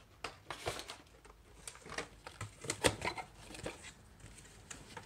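Cardboard packaging and a plastic-bodied RC car being handled: scattered light taps, clicks and rustles as the car is lifted out of its box, the sharpest tap about three seconds in.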